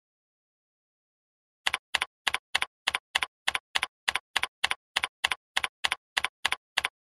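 Computer keyboard typing: evenly paced keystroke clicks, about three a second, each a quick double click, starting nearly two seconds in.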